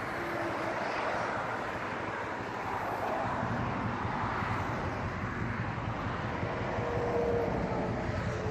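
Asya Ultra 150 motorcycle engine running while riding, with wind rushing over the microphone. The low engine hum grows stronger about three seconds in.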